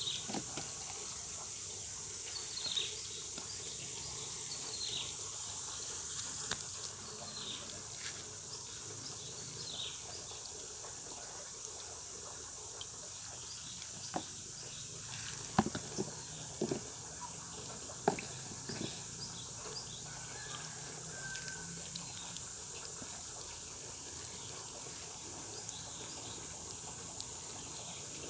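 Catfish fry feeding at the water surface on sprinkled maggot flour: small splashes and pops from the shoal, with a few sharper splashes about halfway through, over a steady high hiss.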